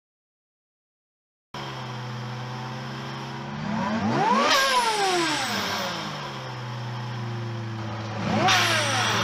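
After about a second and a half of silence, a supercharged Mazda MX-6 engine idles and is revved twice, the second blip shorter. At the top of each rev a hiss comes in as the throttle snaps shut: the Greddy Type S blow-off valve venting.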